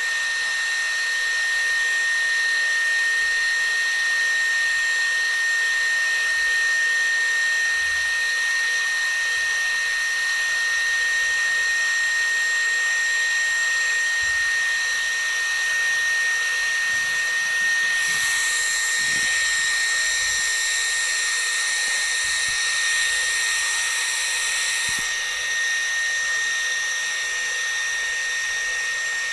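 Shunzao Z1 cordless stick vacuum cleaner running steadily on low speed on battery power: a steady high-pitched motor whine over a rush of air. Partway through, the hiss grows brighter for several seconds, then settles back.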